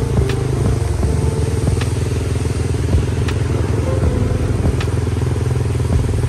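Motorcycle engine running steadily while riding along, with a faint tick about every second and a half.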